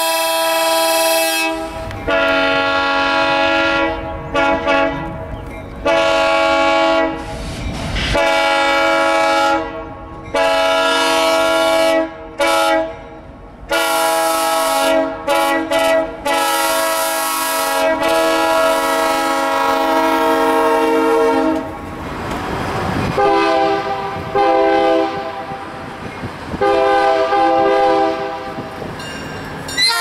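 Freight diesel locomotive air horns sounding a series of long and short chord blasts, several notes at once. Engine and rail rumble lie beneath. The chord changes about a second and a half in and again near the end, as a different locomotive's horn is heard.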